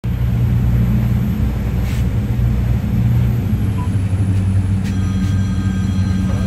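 Steady low rumble of a ship's engines and machinery heard on the bridge, its pitch dropping slightly about three seconds in. A steady electronic tone comes in about five seconds in.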